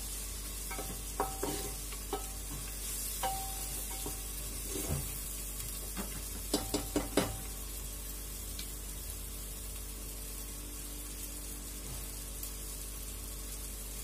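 Wooden spatula stirring and scraping onion-tomato masala in an aluminium pressure cooker, with knocks against the pot that ring briefly, over a steady sizzle of frying in ghee. The stirring stops about seven seconds in, leaving the sizzle alone.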